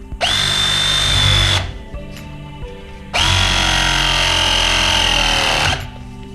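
Cordless power tool motor running twice with a steady high whine, first briefly and then for about two and a half seconds, stopping sharply each time.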